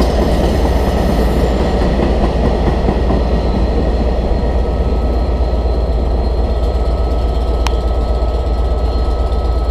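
Freight train of container flat wagons, some carrying tank containers, rolling past on the rails: steady, loud wheel-on-rail noise. A faint steady whine comes in about halfway through, and there is a single sharp click near the end.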